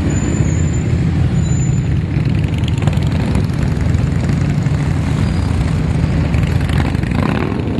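Steady low rumble of a stream of motorcycles, many of them Harley-Davidson V-twins, rolling past slowly in traffic mixed with cars.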